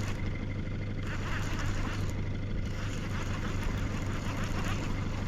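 Boat motor running steadily at trolling speed: a low, even hum under a haze of wind and water noise.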